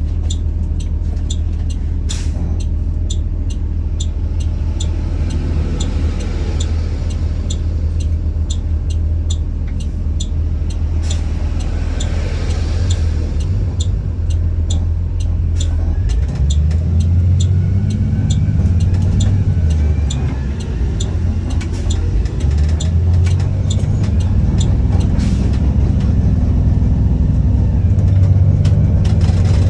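2021 Blue Bird All American school bus engine running steadily, with a regular ticking about twice a second. About halfway through, the engine note deepens and grows louder, with a faint rising whine as the bus pulls away.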